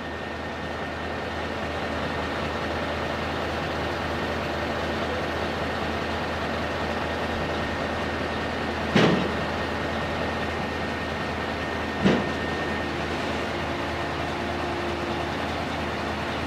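Scania R620 V8 truck engine with standing straight pipes running steadily at idle. Two sharp knocks cut through it, about nine seconds and twelve seconds in.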